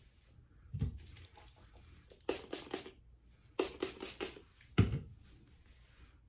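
Quick pumps of a fine-mist spray bottle sprayed onto hair: a fast run of sprays about two seconds in and another run about a second later. A dull thump comes about a second in, and a louder one right after the second run of sprays.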